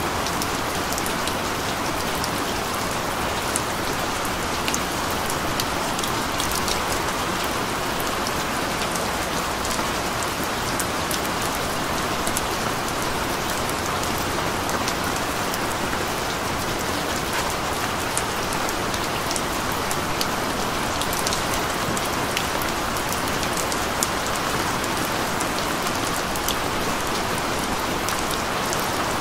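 Steady rain, an even hiss with many small, sharp drop ticks.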